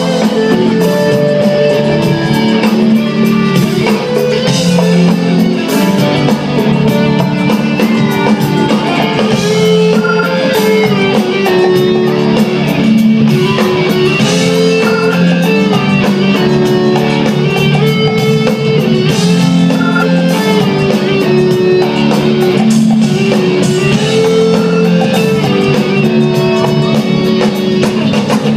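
Live reggae-rock band music: an instrumental passage with electric guitar over a drum kit, and no singing.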